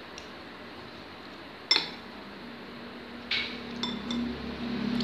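Metal spoon clinking against a ceramic soup bowl while eating: one sharp clink a little under two seconds in, another about a second and a half later, then a few light taps. A low hum comes up in the second half.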